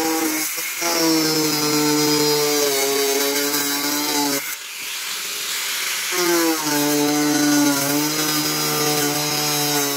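Angle grinder with a cutting disc cutting through an aluminium composite (Alupanel) sheet: a steady motor whine over a hissing cut. It eases off about four and a half seconds in and takes up the cut again about a second and a half later.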